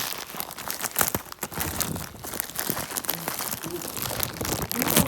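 Packaging being handled while a present is unboxed: irregular crinkling, crunching and tearing.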